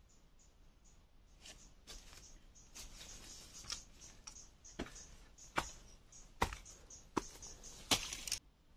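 Rustling of dry leaves and twigs with a series of sharp knocks and clicks that grow louder and more frequent in the second half, then stop abruptly near the end: a person moving about on a leaf-covered rocky slope while handling bamboo tubes close to the microphone.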